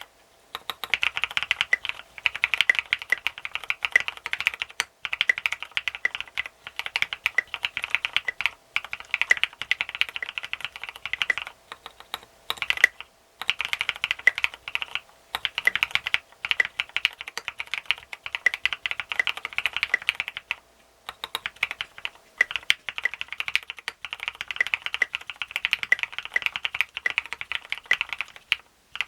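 Steady typing on a Duck Eagle v3 mechanical keyboard: retooled Cherry MX Black linear switches in a plastic plate, top mount, under SA-profile keycaps. Rapid runs of keystrokes, broken now and then by brief pauses.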